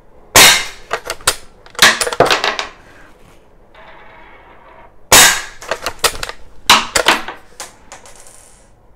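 Umarex Legends Cowboy lever-action CO2 BB rifle being fired and cycled: sharp shots mixed with metallic clacks of the lever action ejecting the cartridge shells. These come in four loud bursts, two near the start and two just past the middle, each trailed by smaller clicks.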